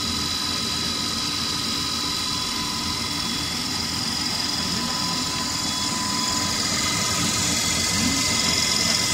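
Floating fish feed extrusion line running: a steady machine drone with several constant high whines over a low rumble, growing slightly louder over the last few seconds.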